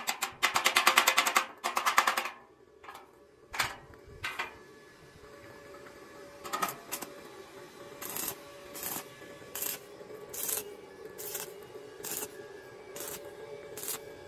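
A handheld power tool rattling in three short bursts against a steel-tube frame in the first two seconds, then background music with a soft, steady beat.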